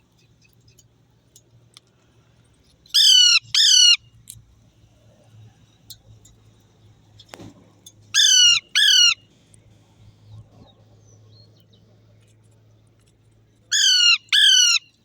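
Pet parakeet squawking: three pairs of loud, harsh calls, each call short and falling in pitch, with a few seconds between pairs.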